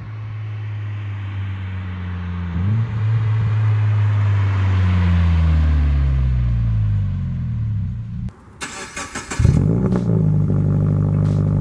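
Invidia N1 stainless cat-back exhaust on a first-generation BRZ/FR-S/GT86's 2.0-litre flat-four, with a mature tone. The revs climb about two and a half seconds in and then slide slowly down. After a brief burst of rushing noise, the revs climb sharply again and hold.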